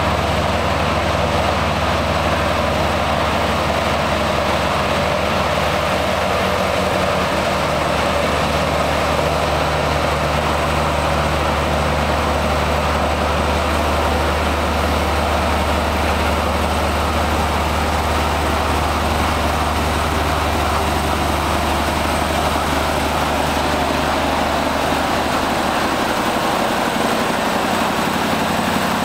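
Mack Super-Liner's V8 diesel and the other prime movers of a heavy-haulage push-pull combination pulling hard up a hill under an oversize load. A steady deep engine drone whose low note shifts near the end as the lead truck comes alongside.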